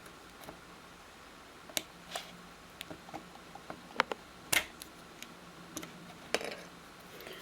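Scattered light clicks and taps of a spudger working at the ribbon-cable connectors inside an iPhone 5, the two loudest about four seconds in, half a second apart.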